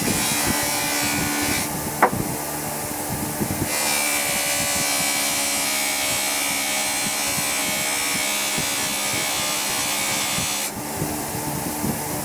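Bench grinder motor running with a steady hum while a steel screwdriver shank is pressed against its spinning buffing wheel, giving a noisy grinding sound for the first second and a half and again from about four seconds in until nearly eleven seconds. A sharp click comes about two seconds in.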